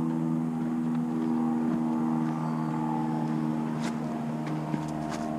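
A steady engine hum at a fixed low pitch, with a few faint ticks over it.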